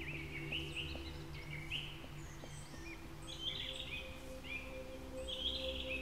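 Songbirds chirping in quick, repeated short calls that rise and fall, over a low, steady drone of sustained tones.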